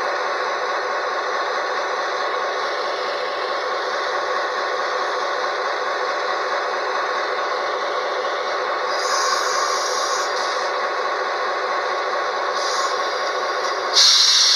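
Diesel-electric locomotive engine running with a steady drone. Short air hisses come about nine and thirteen seconds in, and a louder burst of escaping air comes near the end.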